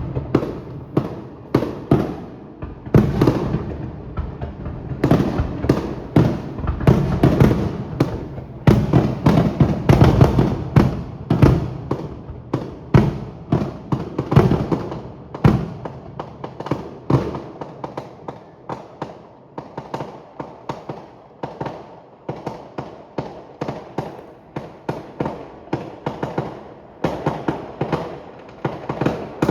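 Fireworks display: a continuous run of sharp bangs from exploding shells, densest and loudest in the first half, giving way after about halfway to quicker, lighter popping reports.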